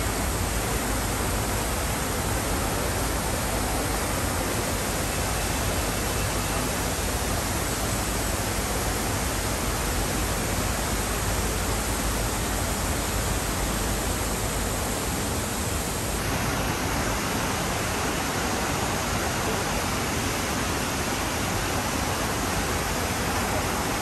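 Ornamental fountain jets shooting up and splashing back into their basin: a steady rushing, hissing water sound. About sixteen seconds in it carries a little less low rumble.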